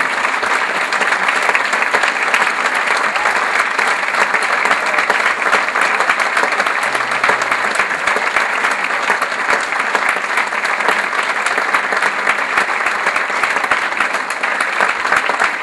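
Audience applauding steadily: many hands clapping at once, a dense, even patter.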